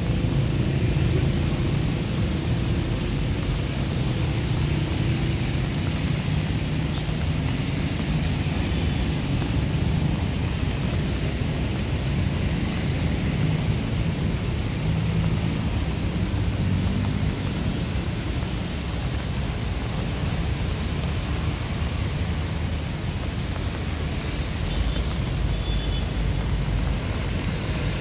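City traffic on rain-wet roads: a steady low rumble with an even hiss over it, the rumble deepening near the end.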